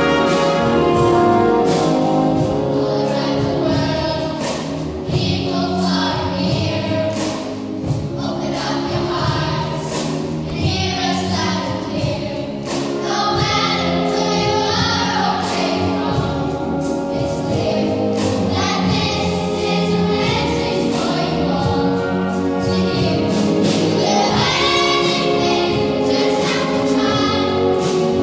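Young choirs singing with a full symphony orchestra and hand drums, in a large reverberant concert hall, with drum strokes beating through the music.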